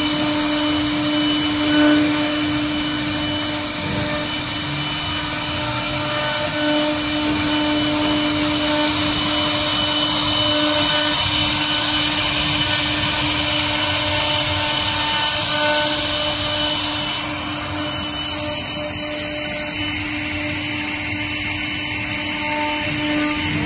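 The two electric spindles of a twin-head CNC wood router whine steadily at one pitch while their bits carve into a wood board, with a hiss of cutting over the tone. The spindles are driven at 300 Hz by their inverters. About two-thirds of the way through, the cutting hiss drops away and the steady spindle whine goes on.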